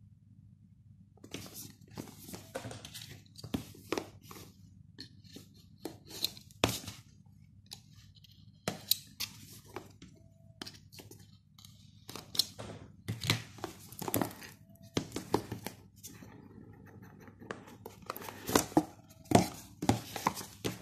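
Cardboard smartphone box being handled and opened by hand: paper tamper-seal stickers tearing, the lid sliding off, and the inner tray and plastic film rustling, with scattered sharp clicks and knocks of card against card.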